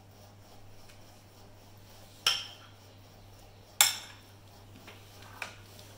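A spoon clinking against a bowl while a salad is stirred, with two sharp clinks about a second and a half apart and a few lighter taps near the end.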